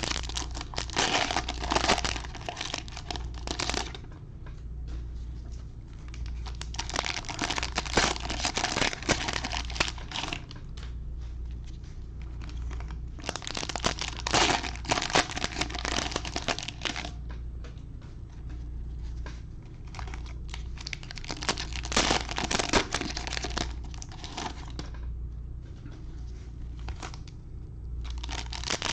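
Plastic wrappers of trading-card packs being torn open and crinkled by hand, in several bursts a few seconds apart, over a steady low hum.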